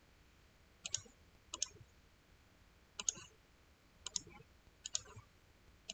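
Computer mouse clicking faintly, six sharp clicks at uneven intervals.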